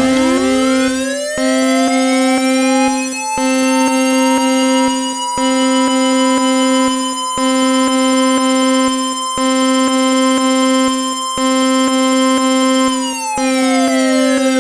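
Synthesized emergency-alert siren: one pure tone glides up over the first few seconds, holds steady, and starts to fall near the end. Beneath it a steady lower tone drops out briefly about every two seconds.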